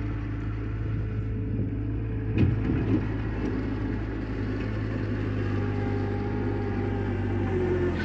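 Bobcat skid-steer loader's engine running steadily as the machine drives forward and pushes snow with its bucket, with a clunk about two and a half seconds in.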